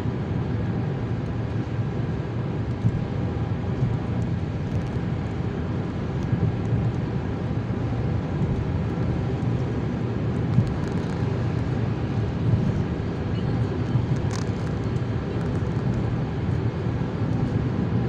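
Steady engine and tyre noise of a car driving on a motorway, heard from inside the cabin, with a short click about fourteen seconds in.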